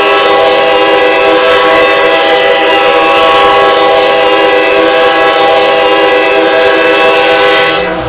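Hockey goal horn blaring one long, steady multi-note chord, cutting off just before the end.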